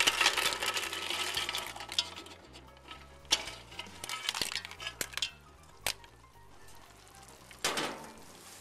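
Clams in their shells tipped from a pan into a pot of hot tomato-and-pepper sauce: sizzling and clattering shells for about the first two seconds, then single clinks of shell on pan as the last clams drop in.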